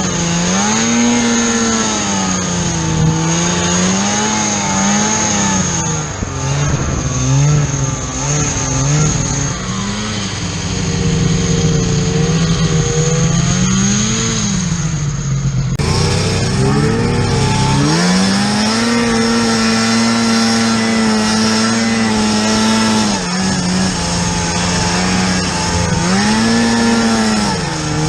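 Snowmobile engine running under load, its pitch rising and falling again and again as the throttle is worked. The sound changes abruptly about sixteen seconds in.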